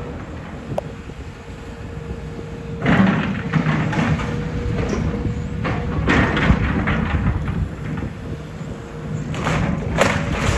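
Building demolition: a heavy machine's engine running steadily, with three bursts of crashing, crunching debris about 3, 6 and 10 seconds in.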